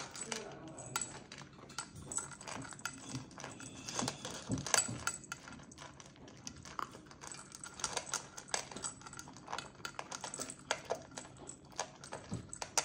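Small dog eating dry kibble from a bowl: a continuous, irregular run of crisp crunches and clicks as it chews and the pieces knock about in the bowl.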